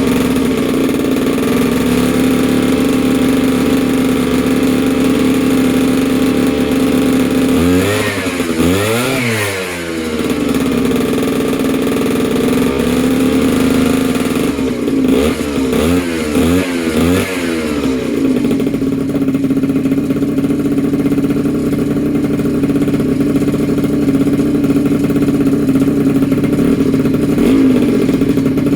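Small two-stroke engine with a Polini Corsa cylinder kit running on its first start after a rebuild. It idles steadily, is blipped once about eight seconds in, and gets a quick run of about four revs around the middle before settling back to idle.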